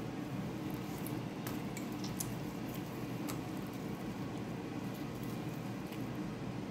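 Whole steamed chicken being pulled apart with a metal fork on a china plate: soft tearing of the meat with a few faint clicks of the fork against the plate, over a steady low hum.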